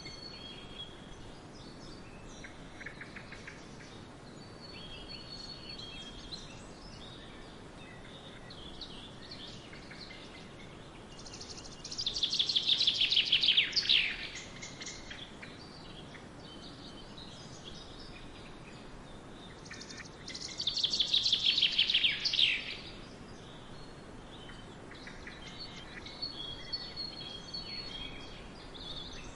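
Songbirds singing: twice, about eight seconds apart, one bird gives a loud song phrase, a rapid trill that falls in pitch over two or three seconds. Quieter chirps and short calls from other birds fill the gaps over a soft outdoor background hiss.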